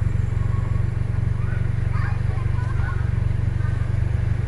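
Large diesel engine idling close by: a steady low rumble with an even, fine pulse.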